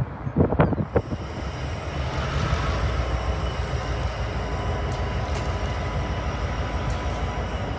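CP Rail diesel locomotive running as it moves slowly past with its passenger cars: a steady low engine drone with a thin steady whine over it, and a few thumps in the first second.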